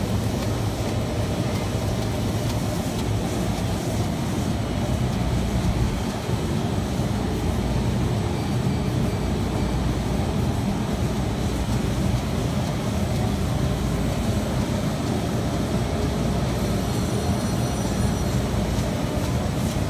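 Intermittent-and-rotary label printing press running: a steady, even mechanical noise from its drive and rollers as the printed web feeds through.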